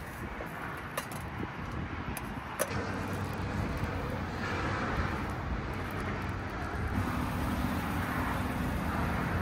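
A motor vehicle driving past, its engine hum and road noise swelling gradually over several seconds, with a light clink of metal cookware about two and a half seconds in.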